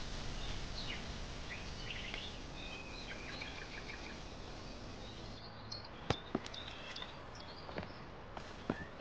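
Outdoor ambience of small birds chirping over a steady hiss, with a few sharp taps in the second half.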